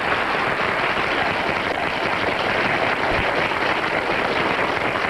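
Studio audience applauding and laughing, a steady dense clapping.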